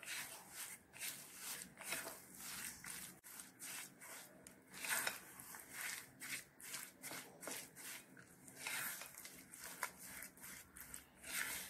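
Pink silicone spatula stirring sugar into grated raw mango in a glass bowl: soft, repeated scraping and rubbing strokes, a few each second, as the sugar is worked in before it melts.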